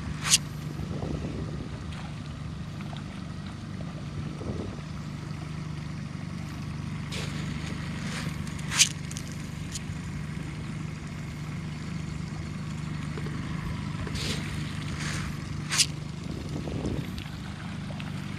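Small boat's motor running steadily with a low hum, and three short, sharp splashes about seven seconds apart.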